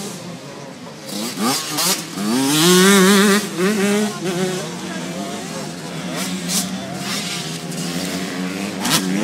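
Motocross motorcycles racing, engines revving through the gears; one bike passes close and loud about two to four seconds in, with other bikes running on behind it.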